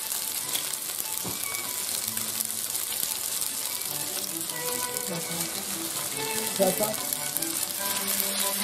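Boiled penne sizzling as it fries in oil in a nonstick pan, a steady crackling hiss, with soft background music.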